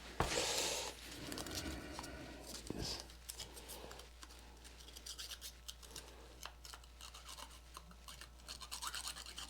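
Light scratching and rubbing of a thick wire being worked against metal, with many faint irregular ticks. A brief, louder rustle comes about half a second in.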